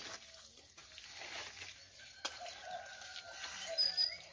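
Chickens clucking faintly, with one long call of about two seconds that rises at its end, and a single sharp click about halfway through.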